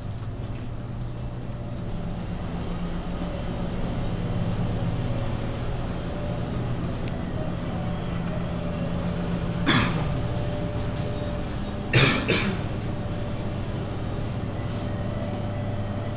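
A person coughing: one cough about ten seconds in, then a quick double cough about two seconds later, over a steady low hum like a running engine.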